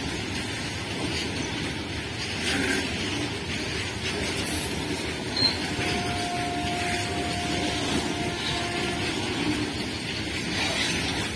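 Indian Railways covered freight wagons rolling past close by: a steady rumble and clatter of steel wheels on the rails. A thin steady whine joins for about three seconds in the middle.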